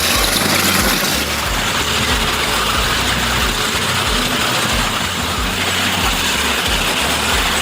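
Tesmec 975 Evo surface miner working: a steady, loud heavy-machine din of its Cat C9.3B diesel engine and machinery, with an uneven low throb underneath.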